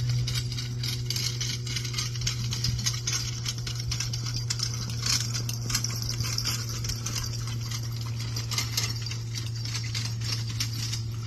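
Two Welsh ponies in tandem trotting on grass, pulling a carriage: a constant run of irregular light knocks and rattles from hooves, harness and wheels, over a steady low hum.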